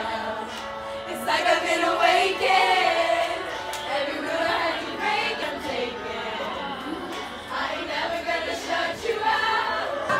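Music with several voices singing together.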